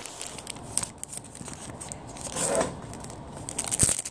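A phone camera being picked up and repositioned by hand: rubbing and scraping handling noise with scattered light clicks, and one sharp knock near the end.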